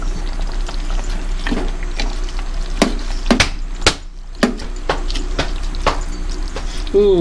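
Metal spoon stirring chicken pieces in an enamel pot over a steady sizzle of the cooking, with several sharp knocks and scrapes of the spoon against the pot.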